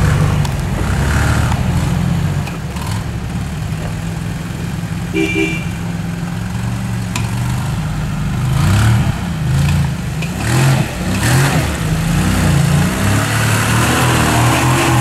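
Engine of an off-road 4x4 working along a rough track, its pitch rising and falling with the throttle in the second half. A short beep sounds about five seconds in.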